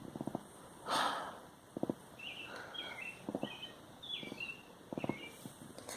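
Faint outdoor ambience: a small bird calls in a string of short chirps. Soft clusters of quick taps come every second or so, and there is a brief breathy rustle about a second in.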